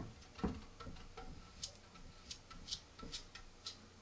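Faint sounds of an epoxy brush working thick JB Weld into a rocket fin seam: a couple of soft knocks in the first half-second, then scattered short, high clicks and ticks about every half second as the bristles dab and scrape along the joint.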